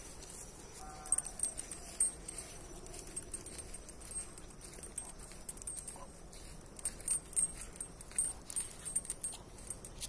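Metal chain dog leash jingling and clinking in irregular bursts as the dog walks on it.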